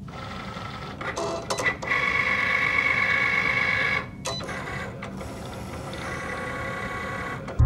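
Cricut Explore Air 2 cutting machine running a cut: its motors whine steadily as the carriage drives the blade over the cardstock. A few clicks come a little after a second in, and the whine is louder from about two to four seconds.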